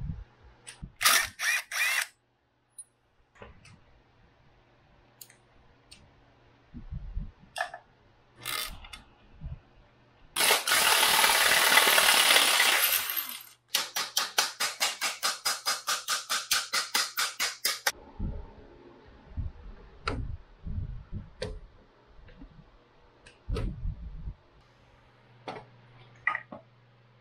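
Hand tools on a dirt bike's frame and engine bolts: scattered clanks, then a power tool running for about three seconds, then a ratchet clicking rapidly, about seven clicks a second, for some four seconds, with low knocks of metal parts being handled afterwards.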